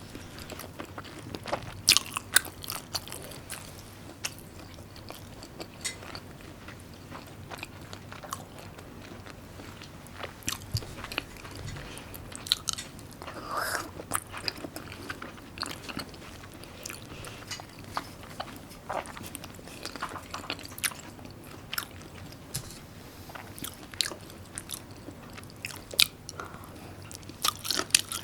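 A person eating close to the microphone: chewing and biting food, with irregular sharp crunches and mouth clicks.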